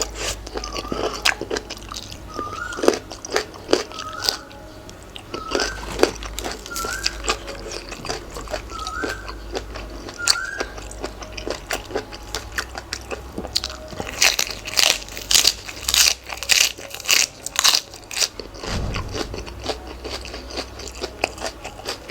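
A person biting and chewing crunchy food, papaya salad with raw vegetables, in many sharp crunches that come thickest and loudest about two-thirds of the way through. A short rising chirp repeats about seven times in the first half.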